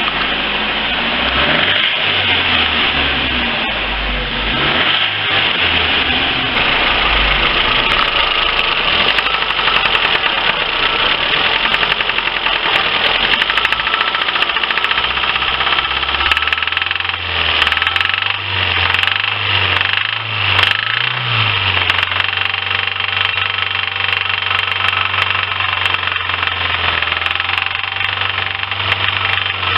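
Lifan car engine running with a knock, which a stethoscope places in the second and third cylinders; the engine note is uneven in the first half and steadier from about halfway on.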